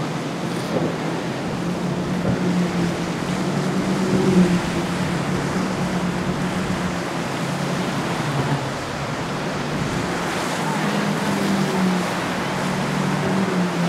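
Motorboat engines droning over the wash of waves and wind, the drone swelling and easing.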